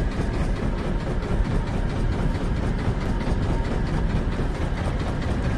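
A fishing boat's engine running steadily at idle, a low even throb.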